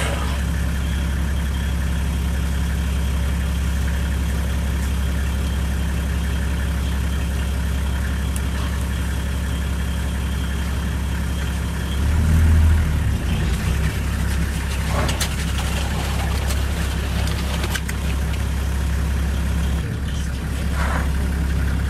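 Safari vehicle's engine idling steadily with a low hum, swelling louder for a moment about halfway through.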